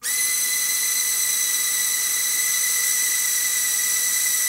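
Flying fidget spinner's tiny electric motor and three-blade rotor whirring as it hovers, a steady high-pitched whine that starts abruptly.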